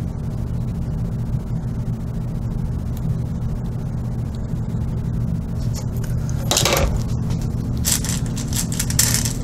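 Steady low hum of a furnace running. Near the end, metallic clatter and clinking as pins are rattled and picked out of a small dish.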